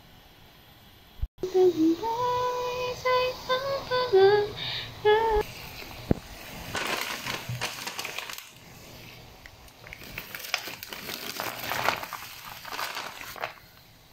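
A voice singing or humming a short tune for about four seconds, holding a few steady notes. After that comes a stretch of irregular rustling and splashing noise.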